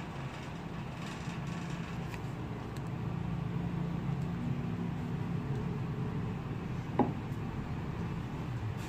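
Steady low background hum, with one short sharp click about seven seconds in.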